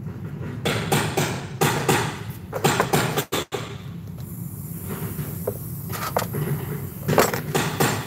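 Tools and small parts being handled during work on a refrigerator's sealed system: a run of sharp knocks and clicks, thickest in the first three seconds and again near the end, over a steady low hum. A faint high hiss comes in about halfway through.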